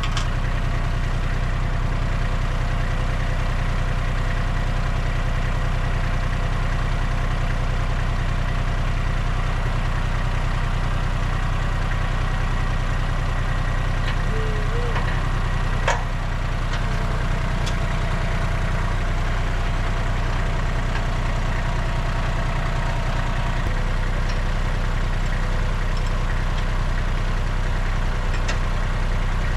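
Compact tractor engine idling steadily, with a few sharp knocks, the loudest about halfway through.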